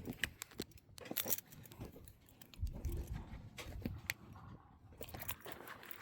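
Faint, irregular crunching and clicking of footsteps on gravelly ground, with a few low rumbles of handling noise.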